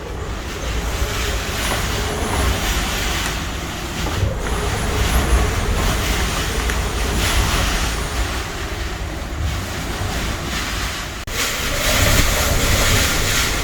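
Typhoon wind gusting hard, buffeting the microphone with a heavy rumble, with a faint wavering high whistle at times. The sound breaks off abruptly about eleven seconds in and comes back louder.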